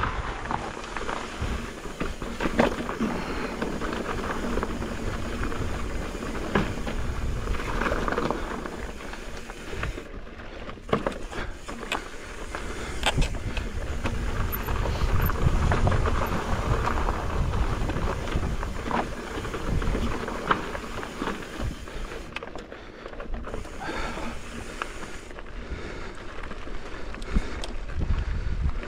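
Pivot Firebird mountain bike ridden over rocky, gravelly singletrack: tyres crunching on loose stones and the bike rattling, with frequent knocks over rocks, and wind rumbling on the GoPro's microphone.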